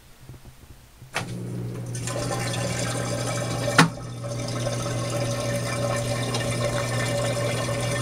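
Haier compact top-loading washing machine starting its wash: a click about a second in, then water running into the tub as it fills, with a steady hum. A second sharp click comes midway.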